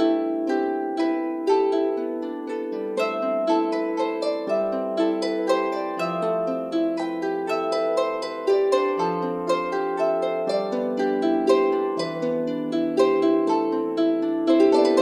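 Background music of quick plucked-string notes, harp-like, in a steady flowing pattern over a slower-changing low line.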